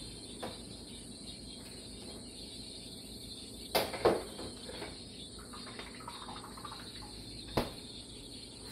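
Kitchen clatter out of sight: a few sharp knocks, two loud ones close together about four seconds in and another near the end, over a steady thin high-pitched hiss.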